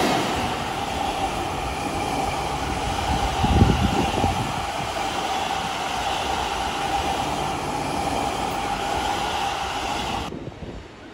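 Unpowered Seibu 40000 series commuter cars being hauled past at close range, wheels rolling steadily on the rails with a steady hum and a few low thumps about three and a half seconds in. The sound drops away suddenly near the end.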